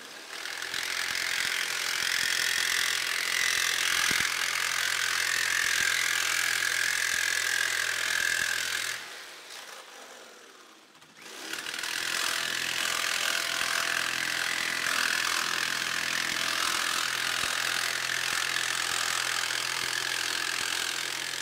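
Corded jigsaw cutting through thin aluminum sheet. The saw runs steadily, stops for about two seconds near the middle, then starts again and cuts on.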